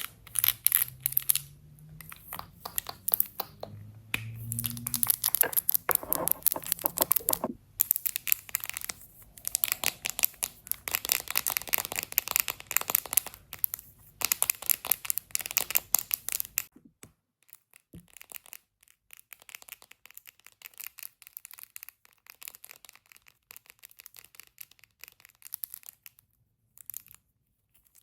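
Close-miked ASMR handling sounds of makeup items: rapid crinkling, scratching and tapping strokes, dense and loud for about the first sixteen seconds, then suddenly much quieter and sparser.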